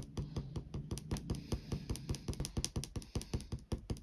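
Kneaded eraser dabbed rapidly on a charcoal drawing on paper, a quick run of soft taps at about six a second, lifting charcoal to bring out highlights.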